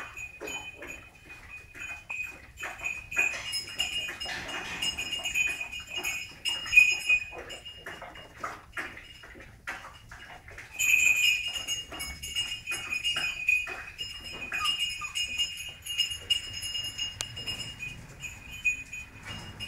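Slovenský kopov puppies playing and scuffling, with a rapid run of short yips, clicks and scrapes. A high-pitched whine comes and goes over it, strongest in two stretches.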